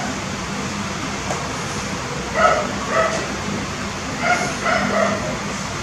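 Short high-pitched cries of a young animal, several in quick succession about halfway through and again near the end.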